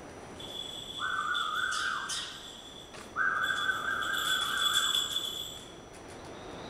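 A steady, flat whistle sounded twice, a shorter note and then one held about two and a half seconds, calling a bird of prey in to the handler's glove.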